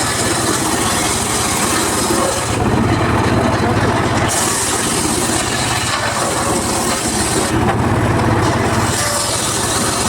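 Homemade circular saw running steadily while its blade rips through teak wood, a high hissing rasp coming in three cuts of two to three seconds each over the saw's steady running hum.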